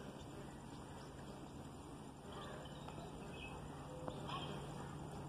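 Faint bird calls, short chirps and brief whistles scattered through, over a low steady hum that grows slightly louder partway through.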